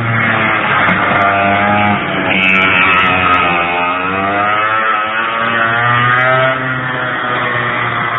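100cc two-stroke kart engine running under way, its note rising and falling as the kart laps. The pitch dips around the middle and climbs again. The engine is being run in and its carburettor setting tuned.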